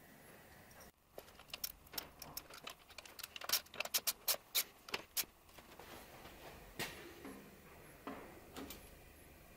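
A bicycle bottom bracket being screwed into a steel frame with a hand tool: a run of sharp metal clicks of tool on fittings. Near the end, a single click and a few softer knocks as the crankset is fitted onto the spindle.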